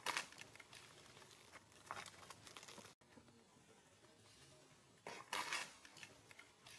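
Dry leaf litter crackling and rustling in short bursts as monkeys move over it, three bursts in all: one right at the start, one about two seconds in, and the loudest about five seconds in.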